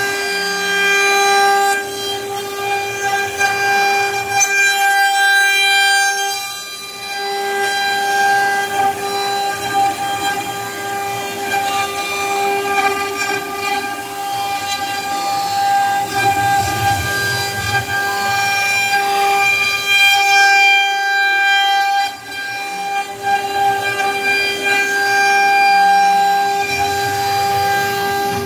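CNC router spindle running at a steady high-pitched whine while its end mill cuts an aluminium plate, with rougher cutting noise that swells and fades as the tool moves, easing briefly twice.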